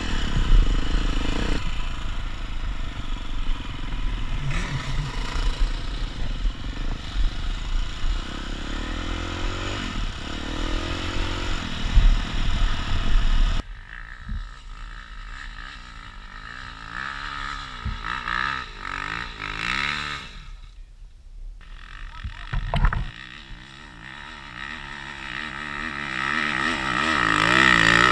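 Dirt bike engine heard from the rider's helmet camera on an off-road trail. It is loud with a heavy low rumble through the first half, drops sharply about halfway to a quieter low-rev running with its pitch rising and falling, and grows louder again near the end as another dirt bike revs alongside.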